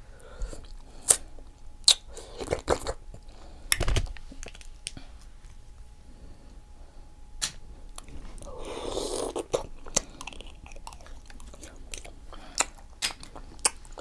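Close-miked mouth sounds of someone eating a seafood boil: chewing and biting with sharp, wet clicks and smacks at irregular intervals, and a longer wet noise about nine seconds in.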